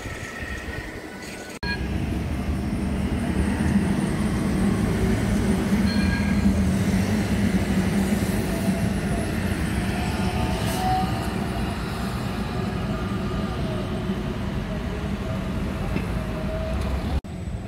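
Translohr rubber-tyred guided tram passing close by: a steady low hum that is strongest in the first half, with a faint higher whine coming in later, over street background.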